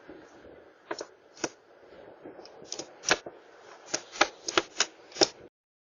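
Irregular sharp clicks and knocks of a house door's handle and lock being tampered with in an attempted break-in, picked up by a doorbell camera's microphone. The sound cuts off suddenly near the end.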